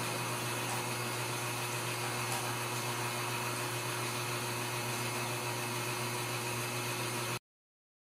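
Steady machine hum and hiss, even in level, that cuts off suddenly near the end.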